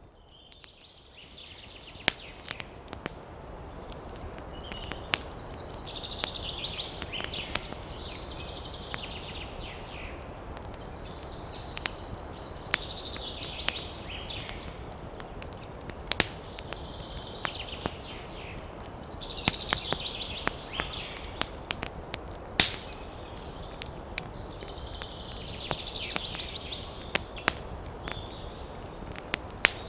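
Campfire crackling with frequent sharp pops over a steady rush of wind in the trees, after a brief dip at the very start. A higher-pitched sound swells and fades about every six or seven seconds.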